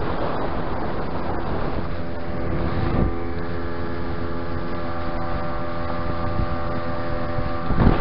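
Tohatsu outboard motor pushing an inflatable boat at planing speed, with wind buffeting the microphone and water rushing past the hull. The motor's steady tone comes through the wind from about two seconds in.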